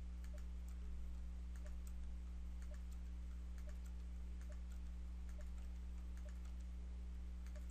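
Computer keyboard keys being pressed one at a time, faint, about once a second, stepping from point to point, over a steady low hum.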